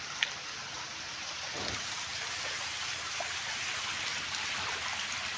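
Shallow water rushing and splashing steadily through a concrete channel, with one sharp click just after the start.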